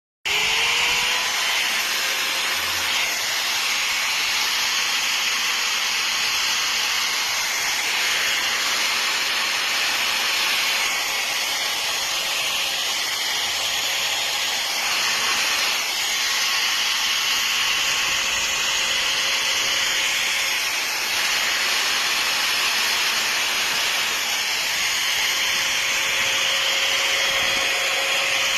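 Electric marble cutter's motor spinning up with a rising whine about a second in, then running steadily at full speed.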